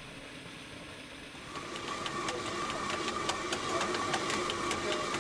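Water-powered stone mill grinding barley. About a second and a half in, a steady hum rises, with sharp irregular ticking about three times a second from the wooden feeder shoe clattering against the turning millstone.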